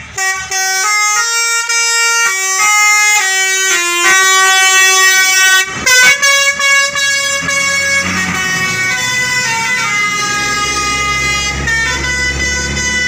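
A tour bus's multi-tone telolet basuri horn plays a tune of short stepped notes for about six seconds. It then sounds held chords over the bus's engine running.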